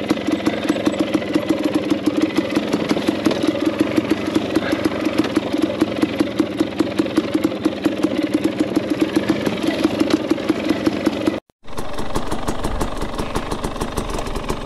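KTM enduro dirt bike engine running steadily at low revs as the bike rolls slowly along a rocky ridge trail. About eleven and a half seconds in the sound cuts out briefly and a dirt bike engine is heard idling.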